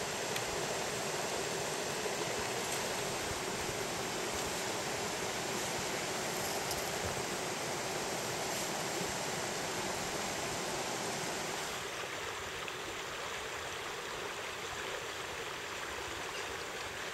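Steady rushing of flowing creek water, a constant even noise that drops slightly in level about twelve seconds in.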